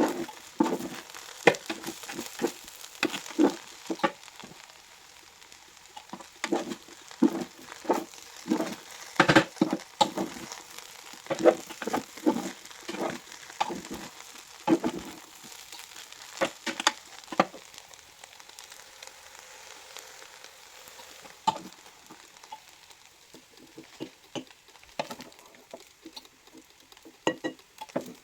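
Fried rice sizzling in a pan while a spatula stirs and scrapes it, with many sharp knocks against the pan. The strokes come thick and fast at first and thin out to an occasional clack later on.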